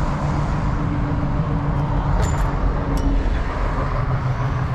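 Steady road traffic rumble with a low engine hum from vehicles crossing the bridge. A few light clicks come about two to three seconds in.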